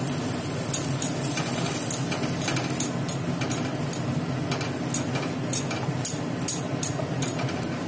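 Wooden spatula stirring coconut milk into a spice paste in a non-stick kadai, clicking and scraping irregularly against the pan, with a steady hiss underneath.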